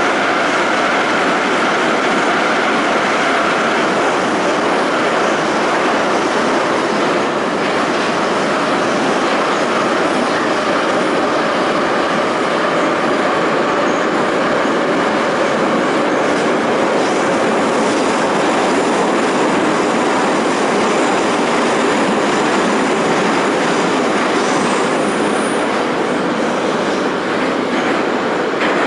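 Moscow Metro 81-717/714 subway train running at speed, heard from inside the passenger car: a loud, steady noise of wheels on rails and running gear.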